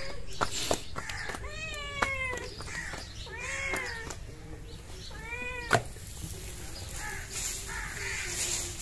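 A cat meowing over and over, about five drawn-out calls, each rising and then falling in pitch, the last two fainter. Among them come a few sharp slaps of roti dough being patted between the palms, the loudest about two-thirds of the way through.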